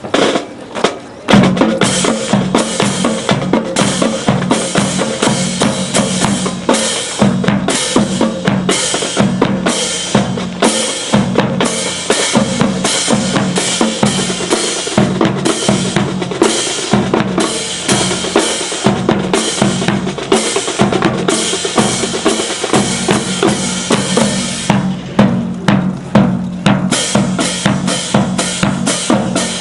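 Drum-heavy music with bass drum and snare driving a steady, fast beat, starting loudly about a second in.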